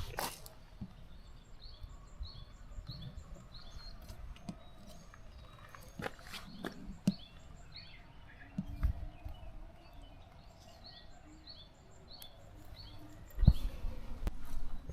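Footsteps of a hiker walking on a mountain trail, with the loudest steps near the end. A small bird calls throughout in short, high chirps repeated over and over.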